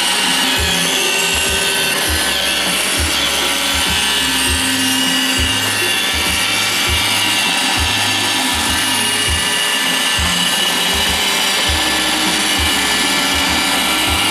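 iRobot Roomba 760 robot vacuum running steadily, its vacuum motor and brushes giving a continuous whirring hiss. Background music with a bass line plays over it.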